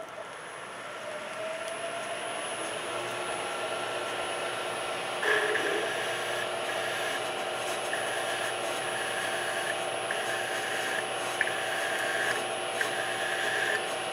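Milling machine spindle running up to speed, then a drill bit cutting into metal in repeated short pecks. Each cut is a high-pitched tone, broken by brief pauses as the bit is backed out.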